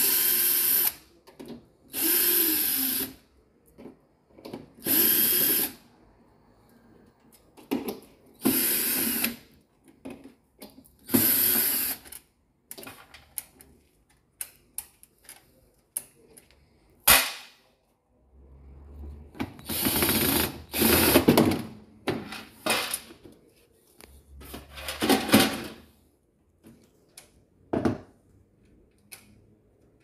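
Cordless drill-driver backing screws out of a dishwasher's metal door panel, in short runs of about a second each: five in the first dozen seconds, then several more after a pause. Between runs come small clicks and handling knocks, with one sharp click about 17 seconds in.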